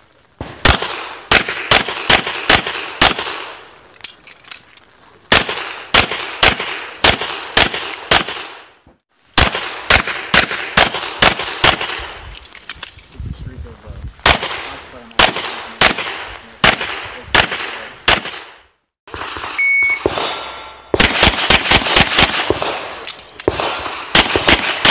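Strings of rapid semi-automatic handgun fire, several shots a second, with short pauses between strings. Near the end a shot timer's high beep sounds once, followed by another fast string of shots.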